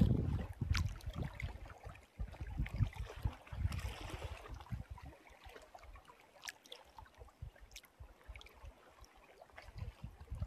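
Small waves lapping and splashing on a lake, with irregular ticks of water and a brief splashy hiss about four seconds in. Gusts of wind buffet the microphone.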